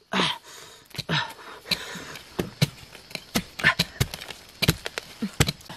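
Irregular knocks and dull thuds of a wooden-handled digging tool striking the earth and roots at the base of bamboo, with a few short vocal sounds in between.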